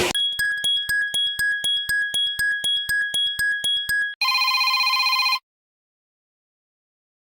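Samsung Galaxy SL (GT-i9003) ringtone: a fast, even run of electronic beeps at one steady pitch for about four seconds, then a short buzzing tone about a second long that cuts off suddenly.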